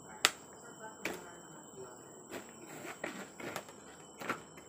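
Rigid clear plastic blister packaging being cut and pried open with a kitchen knife: a series of irregular sharp cracks and clicks as the plastic gives, the loudest about a quarter second in.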